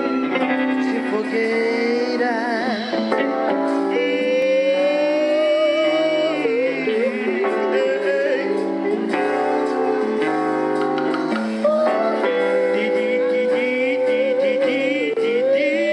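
A live band playing with a lead singer on microphone, singing long held notes that waver in pitch over keyboards and guitar.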